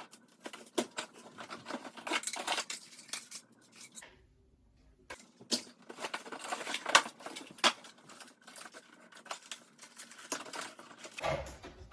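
Unpacking a new stick vacuum: packaging rustling and tearing, with light clicks and knocks as parts are handled, and a short lull about four seconds in.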